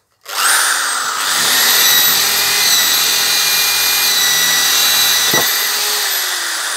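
Hyundai D-850 Expert corded electric drill starting up and boring a hole into a wooden plank, its motor whine high and steady at speed. Near the end the whine falls in pitch as the motor slows down.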